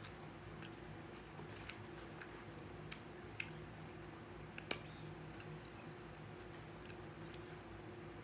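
Faint close-up chewing of a mouthful of food, with scattered small clicks of a fork in a foam takeout container and two sharper clicks about three and a half and nearly five seconds in. A steady low hum runs underneath.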